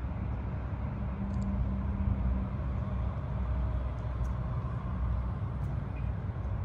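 Tesla Model Y electric SUV rolling slowly up close at walking pace and pulling in, its tyres and quiet drivetrain over a steady low rumble.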